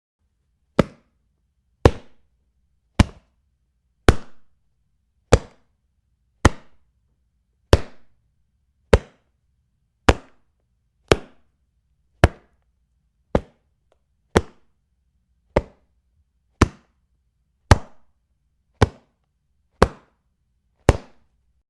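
Two shoes struck together, about nineteen single sharp slaps a little over a second apart, each dying away quickly.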